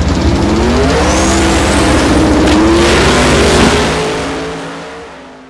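Turbocharged LS-swapped Fox-body Mustang drag car accelerating hard, its engine pitch climbing steadily for about three seconds before the sound fades out.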